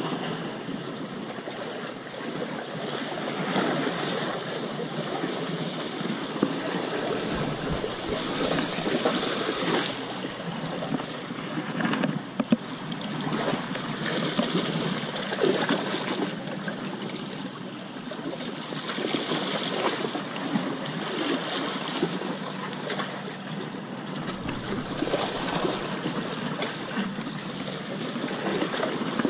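Small waves washing and sloshing over rocks at the water's edge, swelling and easing every few seconds.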